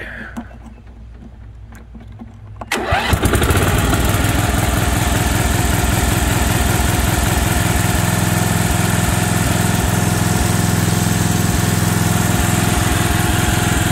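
Simplicity 4211 lawn tractor's 11-horsepower Briggs & Stratton engine started on the key. It catches suddenly about three seconds in and then runs at a steady speed.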